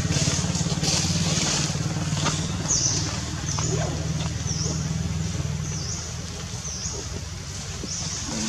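A motor vehicle engine running steadily, a low hum that fades somewhat after about six seconds. A short high chirp repeats about once a second over it.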